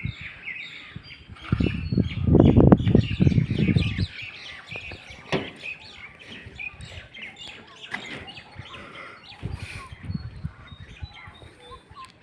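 Birds chirping with many short, high calls, and a loud low rumbling noise about one and a half to four seconds in, with shorter low bursts later.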